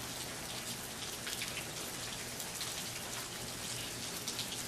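Steady rain: a constant hiss sprinkled with many small, irregular drop ticks.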